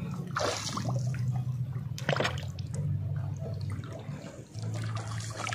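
Water splashing and dripping, with a few short splashes, over a steady low hum.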